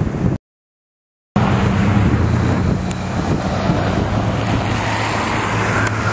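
Wind buffeting the microphone, cut off by about a second of silence, then steady motor-vehicle and traffic noise with a low engine hum through the snowstorm. A steady high tone comes in near the end.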